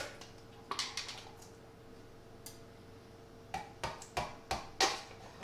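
A tool tapping and prying at a jar lid. There are a couple of light clicks about a second in, then a run of five sharp clicks about a third of a second apart in the second half.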